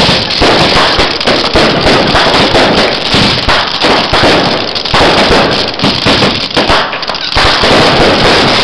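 Fireworks firing in a dense barrage: rapid bangs, launches and crackling bursts overlapping one another with no pause.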